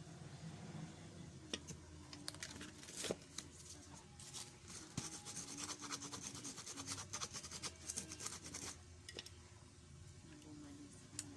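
Irregular scraping and scratching with small clicks of hand work on small parts and wire, busiest through the middle and dying away near the end.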